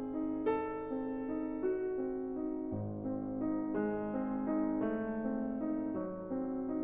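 Background piano music: a slow melody of held notes, a new note or chord every half second to a second.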